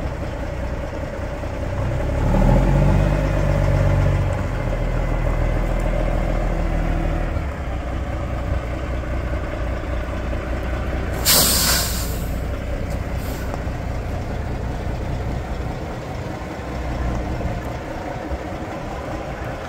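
2016 Kenworth W900 tri-axle tractor's diesel engine idling, its speed rising about two seconds in and settling back to idle some five seconds later. About halfway through, a short loud hiss of compressed air from the truck's air brake system, with a fainter second hiss a couple of seconds after.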